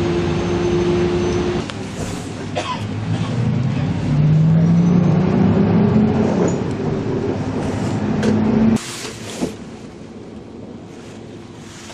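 Coach bus engine and road noise heard from inside the passenger cabin. The drone rises in pitch as the bus pulls harder, then drops abruptly to a quieter hum about nine seconds in.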